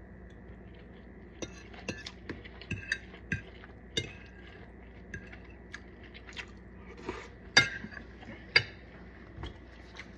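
Cutlery and dishes clinking: scattered light clicks and taps, with two sharper clinks about a second apart near the end.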